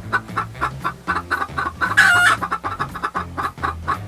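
Chickens clucking in a quick, continuous run of short calls, with one louder, longer squawk about two seconds in.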